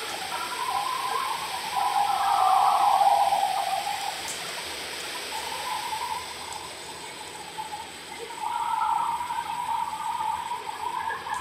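Playback of a phone's overnight outdoor recording: a steady hiss with a wavering mid-pitched drone that swells a couple of seconds in and again near the end. The recordist hears the drone as Native American chanting or a crowd talking.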